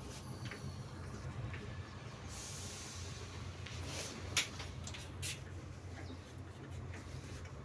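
Two sharp clicks about a second apart, from work on the wall-mounted fire alarm panel being fixed in place, over a steady low hum; a short hiss comes shortly before them.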